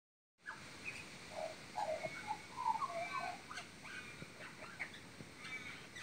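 Magpie giving a quiet, warbling run of varied short notes, chirps and clicks: its song of mimicked calls, imitating other animals such as parrots and a horse.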